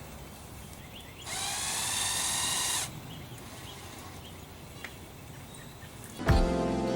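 Power drill running for about a second and a half, its whine rising slightly as it spins up, as a hole is started in the aluminium hinge. Acoustic guitar music starts near the end.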